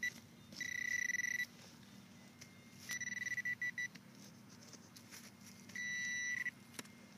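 Metal detector giving a steady high beep four times, each under a second with pauses between, as it is passed over a buried metal target in a dig hole.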